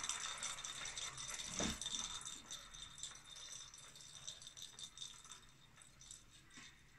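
A small plastic ball rolling round the circular track of a plastic cat toy, rattling continuously. It is loudest at the start and dies away gradually as the ball slows.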